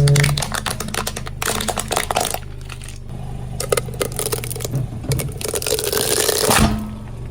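A car tyre rolling over objects and crushing them: a run of sharp crackling snaps over the low, steady running of the car, with two longer stretches of dense crunching, about one and a half seconds in and near the end.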